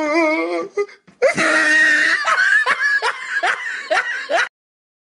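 Hearty laughter in rhythmic ha-ha pulses that stops abruptly near the end.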